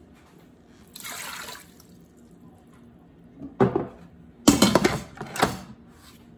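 Water poured briefly from a glass into an Instant Pot's stainless steel inner pot about a second in. Then the pot's lid is set on and twisted shut with a run of loud clunks and rattles.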